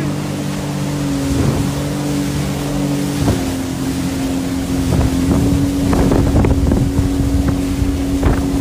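Speedboat engine running at speed with a steady drone, while the hull splashes and knocks through the chop, more often from about five seconds in, with wind on the microphone.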